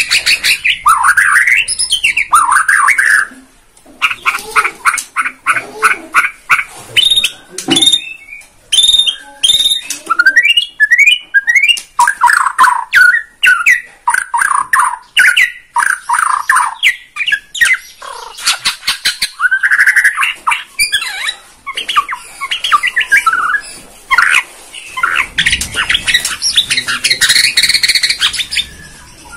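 White-rumped shama (Bornean murai batu) singing a loud, varied song: whistled phrases, sliding notes and runs of quick repeated rattling notes, in bursts with short pauses.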